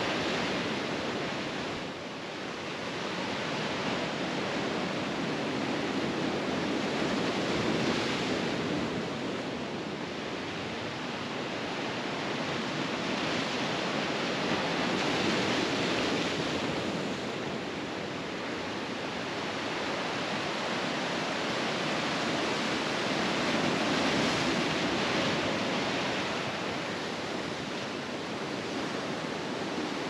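Ocean surf breaking and washing over a boulder shoreline, swelling and fading in slow surges several seconds apart.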